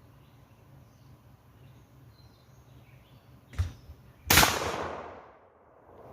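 A single shot from an AR-15-style semi-automatic 12-gauge shotgun firing a rifled slug, a loud sharp report about four seconds in that dies away over about a second. A shorter, quieter knock comes just before it.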